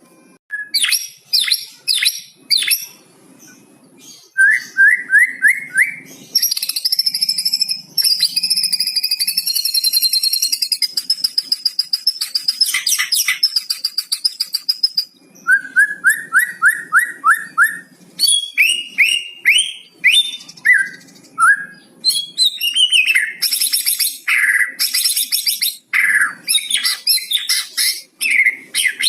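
White-rumped shama singing a varied song with imitations of the cucak cungkok worked in. It goes in runs of quick rising whistled notes, a long fast rattling trill and sharp high whistles.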